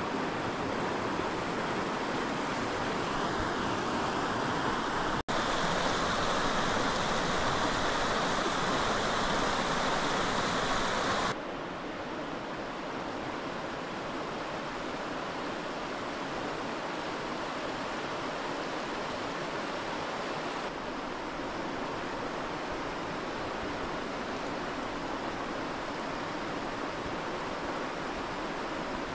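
A swollen river rushing over its bed: a steady wash of water noise that changes abruptly in level and tone about five, eleven and twenty seconds in.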